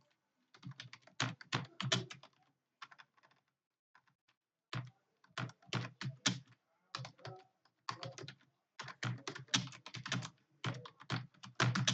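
Typing on a computer keyboard: rapid runs of key clicks in bursts, with a pause of about two seconds partway through.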